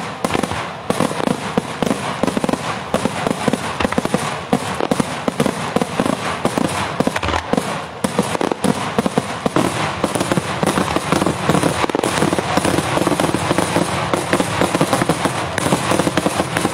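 Daytime aerial fireworks display: a dense, continuous barrage of bangs and crackling from shells bursting overhead, with no pauses between them.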